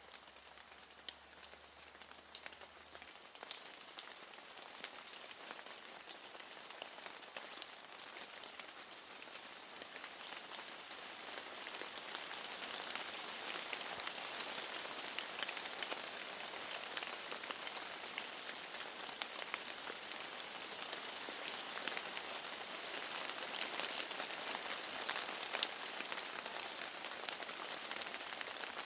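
Steady rain against a window, with many separate drops ticking through the hiss. It grows louder over the first dozen seconds, then holds steady.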